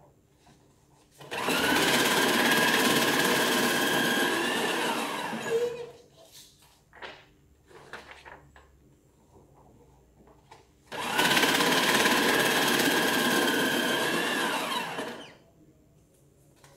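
Electric paper shredder running twice for about four seconds each, a motor whine over the tearing of paper that drops in pitch as the motor stops. Soft paper rustling in between.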